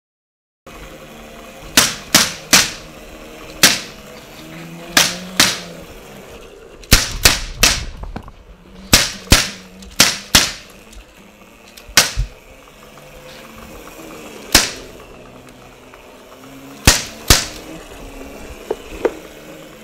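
Gunshots fired one at a time at irregular intervals, about twenty sharp cracks in all, some in quick pairs, each with a short room echo.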